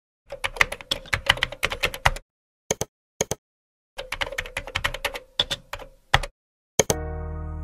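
Computer keyboard typing: two quick runs of keystrokes with a couple of single taps between them. A sustained music chord comes in near the end.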